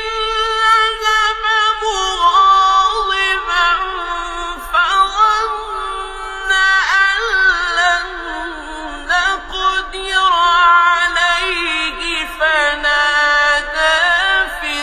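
A man reciting the Quran in a melodic chanting style. His single high voice holds long notes and decorates them with wavering turns and glides, pausing briefly between phrases.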